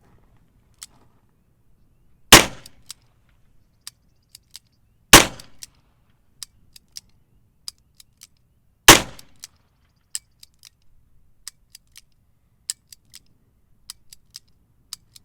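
Smith & Wesson Model 547 9mm revolver fired single action: three loud shots, about 2.5 s in, near 5 s and near 9 s. Between them, and through the last few seconds with no shot following, come many quieter clicks of the hammer being cocked and falling, as the gun fails to fire some rounds.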